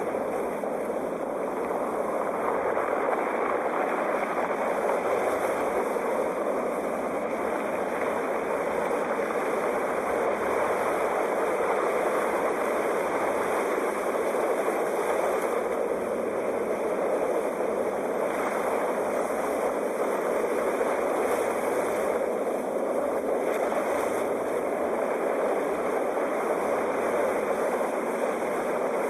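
Sea waves: a steady wash of surf with no separate breaks standing out.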